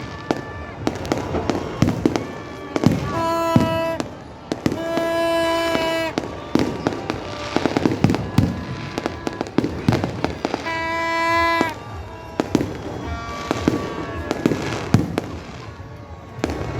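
Fireworks bursting in a rapid string of bangs and crackles, with music playing alongside and holding long notes several times.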